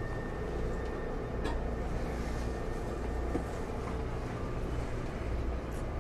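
Steady low hum and rumble inside a Taipei Metro high-capacity steel-wheel train car standing at a platform with its doors shut, with a faint click about one and a half seconds in.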